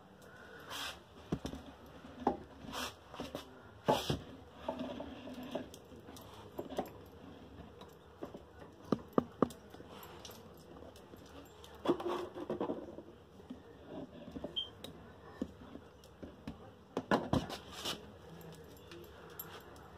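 Scattered light clicks, taps and rustles from handling and a small dog shifting on a towel, with three sharp clicks in quick succession about nine seconds in.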